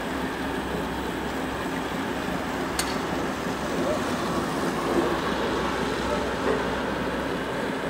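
Steady background noise with faint distant voices, and one sharp click about three seconds in.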